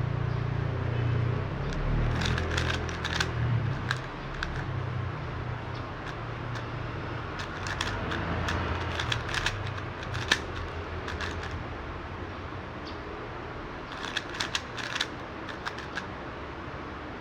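Magnetic plastic speed cube being turned fast in a solve, its layers clicking and clacking in quick flurries with short pauses between.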